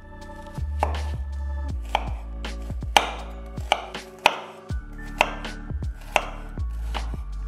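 Chef's knife dicing a peeled onion on a wooden cutting board: about a dozen separate, irregularly spaced knife strikes on the board.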